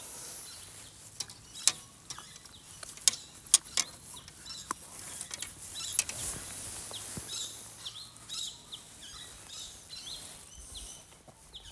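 Scattered sharp clicks and knocks of rubber boots stepping over rocks and sticks and of the landed redfin being handled, with short bird chirps in the background.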